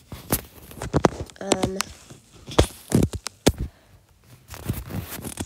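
Fingers tapping on an iPad's touchscreen: an irregular run of sharp little clicks, with a short hummed "mm" from the person about a second and a half in.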